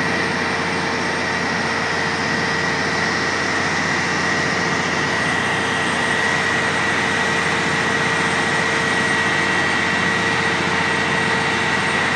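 Manitowoc crawler crane's diesel engine running steadily under load while holding the suspended vessel, with a steady high-pitched whine over it.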